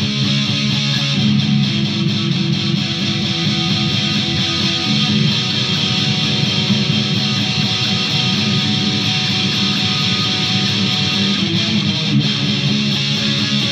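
Electric guitar played without a break, steady picked notes and chords, run through floor effects pedals.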